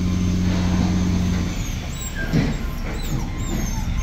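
Heavy engine of road-works machinery running steadily with a low hum, easing off after about a second and a half.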